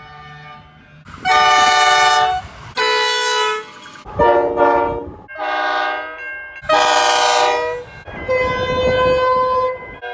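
Locomotive air horns sounding a string of separate blasts, each a second or so long, with two short toots about four seconds in. Each blast is a different multi-note horn chord, cut abruptly one after another.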